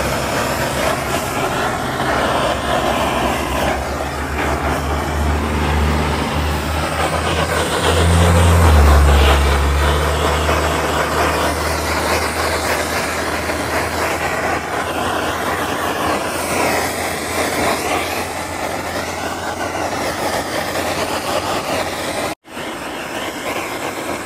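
Handheld butane cartridge torch hissing steadily as its flame heats the heat-shrink sleeves on the cable entry ports of a fibre-optic splice closure. A motor vehicle's engine rumbles underneath, loudest about eight to ten seconds in, then fading.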